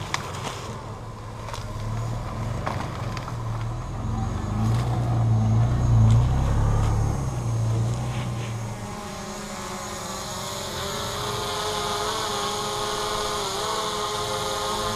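Four-wheel-drive vehicle engine driving through soft sand, working harder and louder up to about six seconds in, then easing off. A higher, wavering whine follows in the last few seconds.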